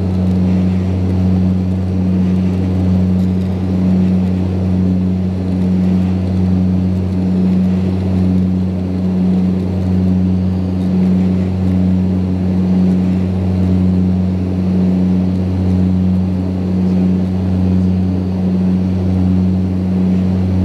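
Saab 340B's twin General Electric CT7 turboprops and propellers at climb power, heard inside the cabin as a loud, steady low drone with a slow pulsing swell about every two seconds.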